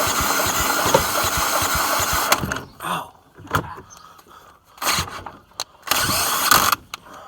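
Lawn mower engine turning over and running with rapid firing pulses, cutting off about two and a half seconds in. Several short, loud bursts of mechanical noise follow.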